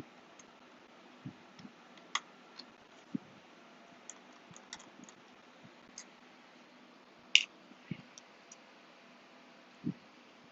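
Irregular small clicks and taps of a precision screwdriver and tiny screws against the aluminium case of a 12-inch PowerBook G4 during disassembly, with a few soft low knocks in between. The sharpest click comes about seven seconds in.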